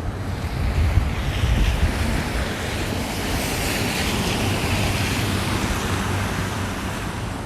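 Street traffic in snow: a rushing hiss of tyres on a slushy road with a low engine rumble, swelling as a vehicle passes about halfway through and easing off near the end.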